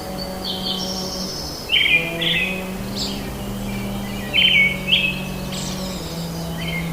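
Small bird chirping in short, quick trilled phrases repeated about every second. Under it runs a low steady hum that shifts pitch a few times.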